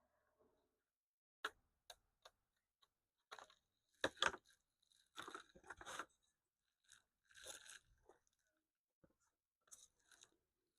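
Thin wood veneer being cut by hand into a small patch: a series of short, separate crunching crackles, the loudest about four seconds in.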